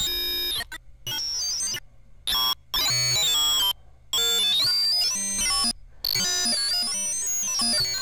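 Synthesized sci-fi computer sound: a sine tone from Logic's ES2 synth, bit-crushed into a dense cluster of gritty digital tones, moved around to different pitches. It comes in choppy blocks that cut on and off abruptly, with high whistling tones gliding up and down.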